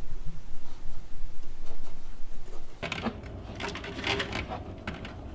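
A low steady hum with a few faint ticks, then, about three seconds in, a run of quick light clicks and rattles as hands work the wiring and its braided loom among the plastic parts of the engine bay.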